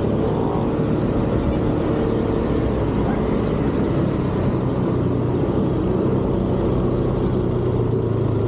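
Motor scooter engine running at a steady low road speed, a constant hum mixed with road noise.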